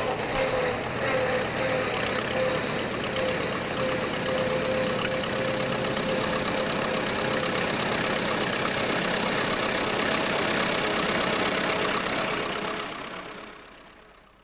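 Vintage Fordson tractor engines running as the tractors drive along, steady until the sound fades out near the end.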